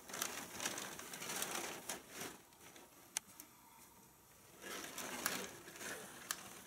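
Faint rustling and scuffling of cats moving about in a nylon play tent and crumpled packing paper, in two stretches with a quiet gap between them and a single sharp tick about three seconds in.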